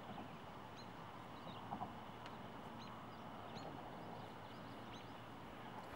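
Faint outdoor ambience of small birds chirping, short high chirps coming about once a second over a steady soft background hiss.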